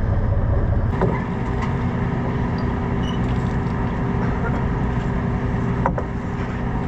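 A sportfishing boat's inboard diesel engines running steadily, a low drone with a few held tones, and a faint knock near the end.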